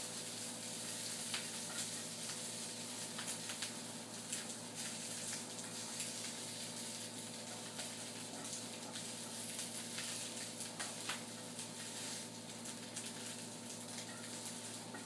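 Fried rice patties sizzling steadily in a lightly oiled double-sided Happycall pan over a gas flame, browning. Occasional light clicks come from a utensil against the pan.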